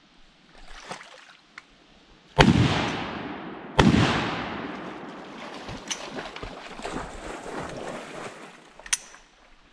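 Two shotgun blasts about a second and a half apart, each with a long echo fading away, from duck hunters shooting at ducks on the water.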